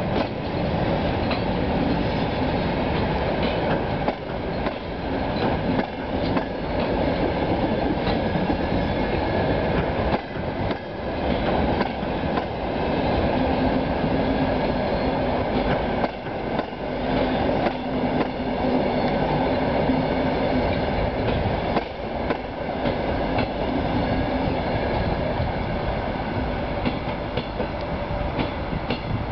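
Long train rolling past close by: heavily loaded flat wagons and then passenger coaches, steel wheels clattering steadily over the rail joints.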